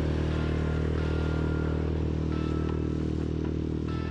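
Small Suzuki tiller outboard motor running steadily at speed, pushing an inflatable boat.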